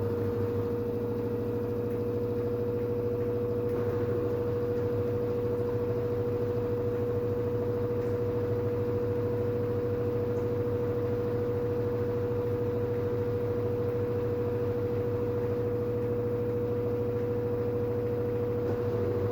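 LG FH4A8TDN2 front-loading washing machine spinning its drum at a steady speed on the spin cycle: a constant whine over a low hum.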